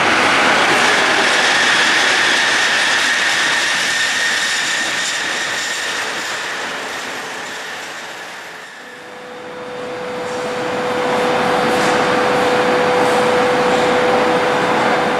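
SU42 diesel locomotive running light along the tracks, its diesel engine and wheel noise loud at first and fading away. A little before halfway it rises again, with a steady whine, as the locomotive comes closer.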